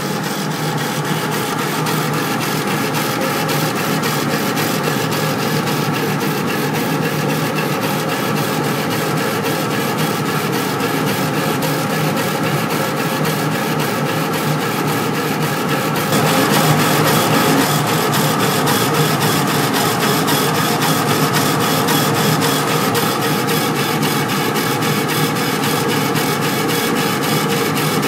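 Epilog laser engraver raster-engraving a photograph into wood: the laser head's carriage sweeps back and forth at speed, a steady mechanical whirr with a rapid, even beat as the head reverses at each line. About sixteen seconds in the sound turns a little louder and brighter.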